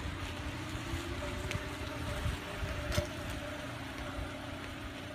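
2012 Hyundai Elantra moving, with a rattle from the rear passenger-side wheel over the steady running noise, and a few irregular sharp clicks.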